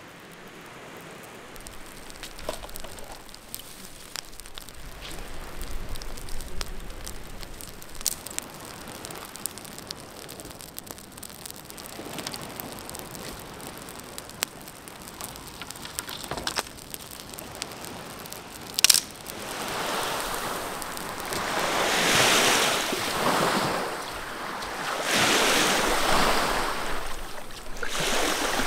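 Small campfire of birch bark and driftwood crackling with scattered pops, then one sharp click; after that, small lake waves wash onto a sand shore in rolling surges, louder than the fire.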